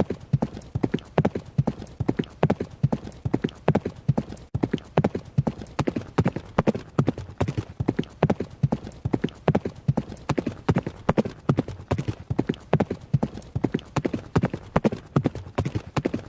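A horse's hooves running at a steady pace, sharp strikes falling in quick repeating groups in an even rhythm.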